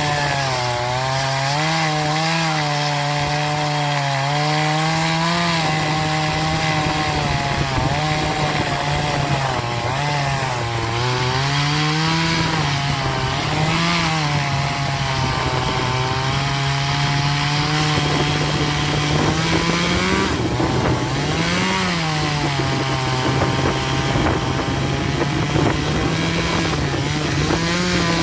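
Troy-Bilt TB4218 42cc two-stroke chainsaw running at high revs while cutting into an oak stump, its engine pitch sagging and picking up again as the chain bites and frees in the wood.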